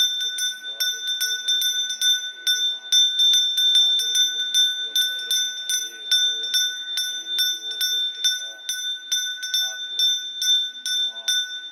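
Small brass Hindu puja hand bell (ghanti) rung continuously, its clapper striking about three to four times a second over a steady high ring.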